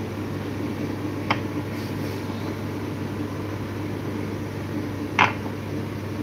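Steady low machine hum, with two short sharp knocks: one about a second in and one about five seconds in.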